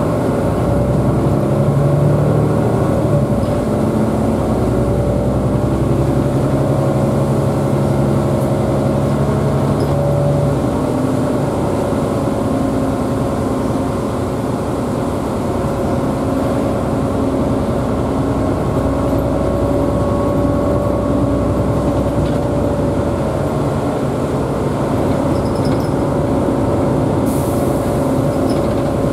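Cabin sound of a 2005 Mercedes-Benz Citaro O 530 city bus under way: steady diesel engine and drivetrain drone with road noise. The engine note changes about ten seconds in.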